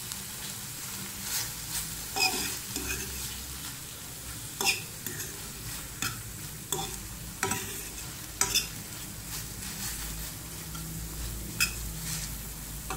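Sliced vegetables stir-frying in a metal frying pan: a steady sizzle, with a metal spatula scraping and knocking against the pan about a dozen times at irregular intervals.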